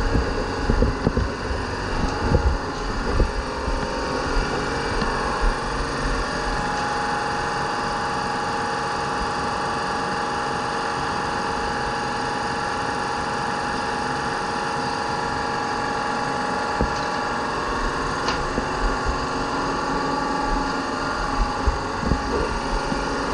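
A workshop motor running steadily, a continuous drone with a faint steady whine. Knocks and clatter of the foam blank and template being handled come in the first few seconds and again near the end.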